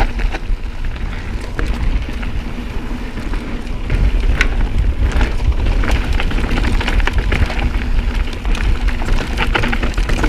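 Mountain bike (Pivot SwitchBlade 29) riding a dirt trail. Heavy wind rumble on the microphone, tyres crackling over the dirt, and frequent sharp clicks and rattles from the bike, busier from about four seconds in.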